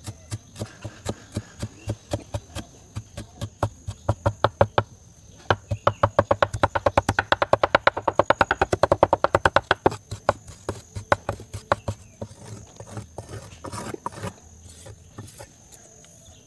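A large kitchen knife chopping green chillies and coriander leaves on a wooden chopping block: a run of sharp knocks, about three a second at first, then a fast, louder burst of about eight a second between roughly five and ten seconds in, slowing and fading near the end.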